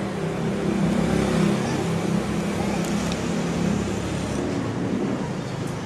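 A motor vehicle's engine running steadily: a low hum under a noisy rush.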